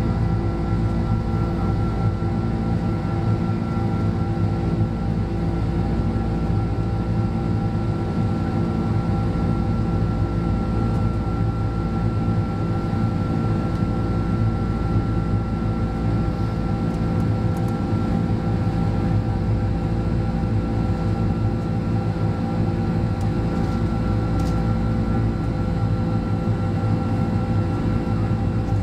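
Steady drone of a Boeing 767-300's Rolls-Royce RB211 jet engines heard from inside the cabin, a constant low rumble with a few steady hum tones on top.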